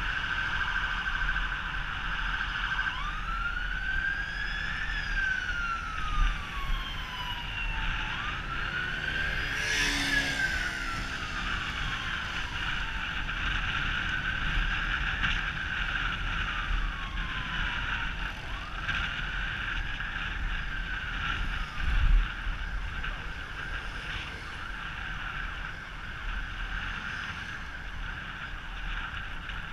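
Emergency vehicle siren in a slow wail, its pitch rising and falling over several seconds, cycle after cycle, fainter in the second half. A low wind rumble on the microphone from the moving bike lies under it, and a brief click comes about ten seconds in.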